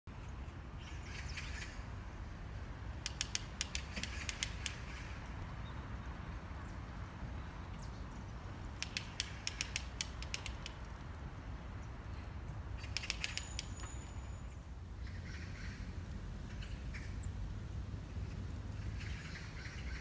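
Japanese pygmy woodpecker pecking at a branch: three bouts of quick, evenly spaced taps, about five a second, the first two longer and the third short.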